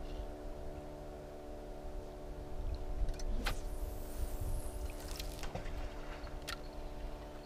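A motorboat engine running steadily on the river, with a few short sharp clicks from about three and a half seconds in.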